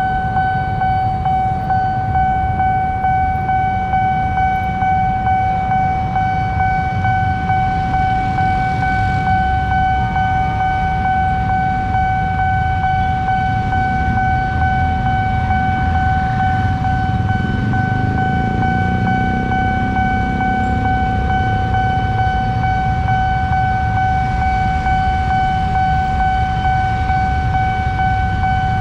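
Railway level-crossing warning alarm sounding one steady, unbroken high tone, over the low rumble of many motorcycle engines idling at the closed crossing.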